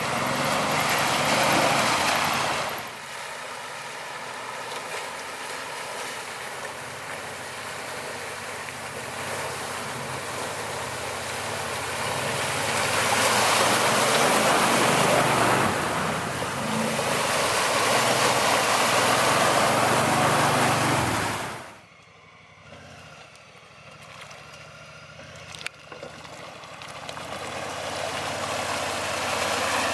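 ATV engine running while driving through water on a flooded trail, with loud splashing and rushing water in stretches. About two-thirds of the way in the sound drops suddenly to a quieter engine hum, which slowly grows louder again.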